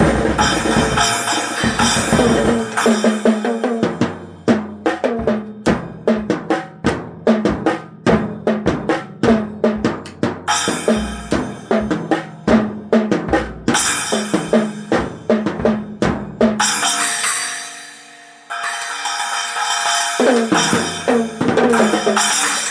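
A small drum kit played hard: fast strokes on the snare, bass drum and toms, with cymbal crashes ringing over them. About two thirds of the way through the playing stops while a cymbal dies away, then it starts again with cymbals washing over the beat.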